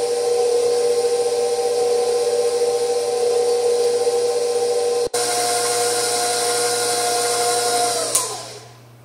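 Electric stand mixer running on low speed, beating cupcake batter, with a steady motor whine. Near the end it is switched off and the whine falls away as the motor winds down.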